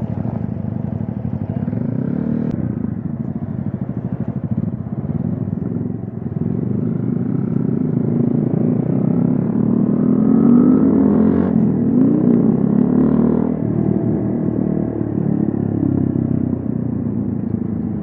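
Keeway Cafe Racer 152's single-cylinder four-stroke engine running through an aftermarket Akrapovic full exhaust system with the dB killer fitted, heard from the rider's seat while riding in traffic. The exhaust note rises and falls in pitch as the bike speeds up and eases off, loudest in the middle of the stretch.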